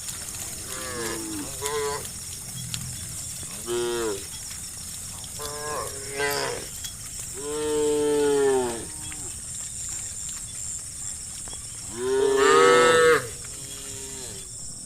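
A herd of cows mooing, five or six separate moos of up to about a second and a half each, the loudest near the end. A steady high-pitched buzz runs underneath.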